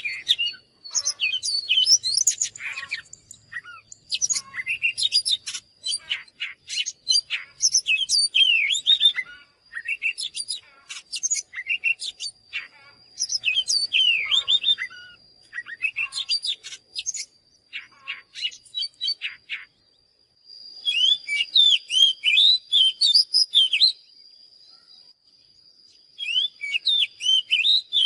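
Oriental magpie-robin singing: quick phrases of varied whistles, chirps and trills, broken by short pauses, with a longer pause about three quarters of the way through. A faint steady high tone runs underneath.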